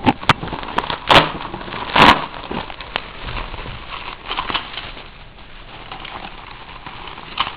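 Plastic bubble wrap crinkling and rustling as it is handled and pulled from a cardboard box. Several sharp clicks come in the first two seconds, and softer irregular crackling follows.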